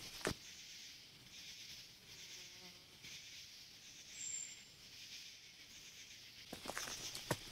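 Steady, softly pulsing chorus of forest insects, with one brief high chirp about four seconds in. Footsteps on a dirt trail at the very start and again from about six and a half seconds on.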